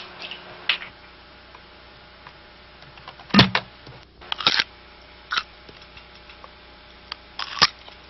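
Small clicks and rustles of a pill container being opened and handled, with one louder sharp knock about three and a half seconds in and a few more light clicks after it.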